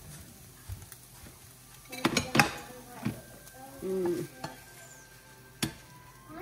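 Spatula scraping and knocking in a frying pan as scrambled eggs are stirred and then slid out onto a plate, with a faint sizzle from the pan. A plate set down on the stovetop and the spatula hitting the pan give sharp knocks, the loudest about two seconds in.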